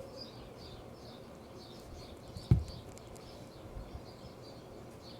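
A bird chirping over and over, short high chirps about three a second. A single dull thump about halfway through.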